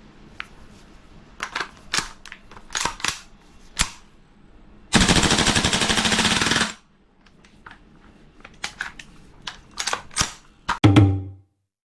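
King Arms BlackRain 9mm gas-blowback airsoft carbine: a string of sharp single clacks, then a full-auto burst of about a second and a half, the bolt cycling rapidly, then more sharp clacks and a low thud before the sound cuts off.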